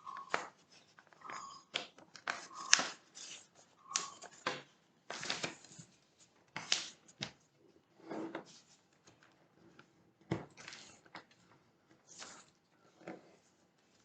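A sheet of A4 paper being folded and creased, with repeated short rustles and scrapes as the paper is handled and the fold is pressed flat.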